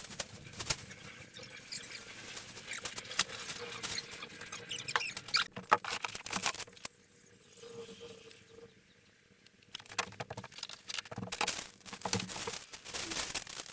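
Small objects being handled and sorted: scattered clicks, taps and rustling, with a quieter stretch about nine seconds in.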